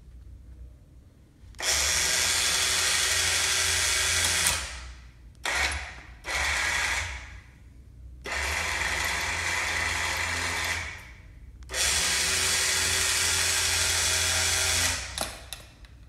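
Compact electric chain hoist motor running in separate runs as buttons on its wireless remote are pressed: three runs of about three seconds and two short ones, each starting and stopping with quiet between.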